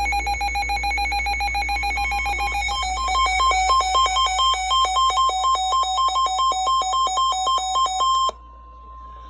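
Weather alert radio's electronic alarm beeping rapidly and buzzily, switching from about three seconds in to a two-pitch alternating pattern, signalling an incoming warning. Under it runs the steady 1050 Hz warning alarm tone of NOAA Weather Radio. The beeping cuts off suddenly near the end, leaving that single steady tone.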